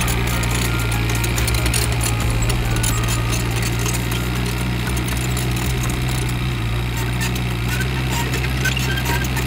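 Komatsu PC58 mini excavator's diesel engine running steadily.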